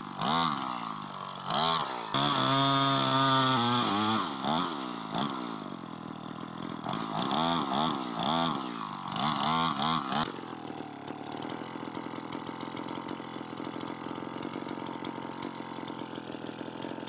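Two-stroke chainsaw being revved repeatedly, its pitch rising and falling with each blip of the throttle and held high for a second or two. About ten seconds in, it drops suddenly to a steady idle.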